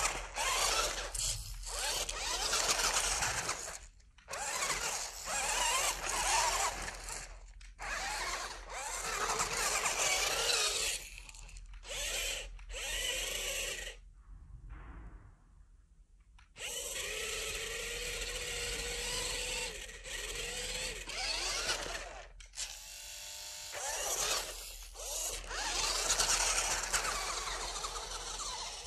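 Electric motor and gears of a WLtoys RC rock crawler whining in stop-start bursts as it drives through a muddy puddle, with water splashing. The motor drops out briefly several times, with a longer pause about halfway, and holds a steady whine for a few seconds after it.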